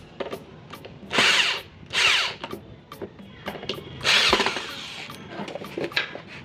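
Electric drill running in three short bursts, each a second or less.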